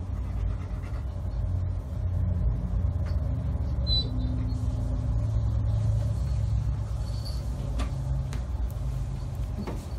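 Kitten purring steadily, a continuous low rumble, while its head is stroked.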